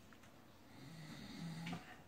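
Blue-and-gold macaw making a faint, low grumble in two short stretches, slightly louder near the end.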